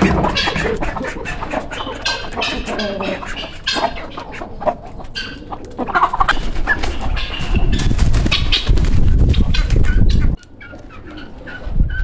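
Domestic turkeys and other farmyard fowl clucking and calling, many short overlapping calls. A low rumble on the microphone joins from about six seconds in and cuts off suddenly just after ten seconds.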